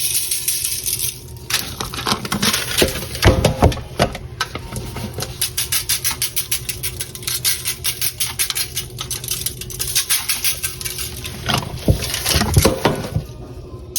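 Barbecue seasoning being shaken from a shaker container onto ribs: a fast run of rattling taps and pattering granules, after a brief hiss about the first second. There are a few heavier knocks about three seconds in and again near the end.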